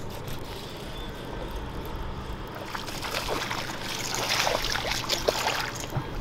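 Water splashing and trickling at the side of a fishing boat, over a low steady hum. The splashing picks up about three seconds in and goes on for a few seconds.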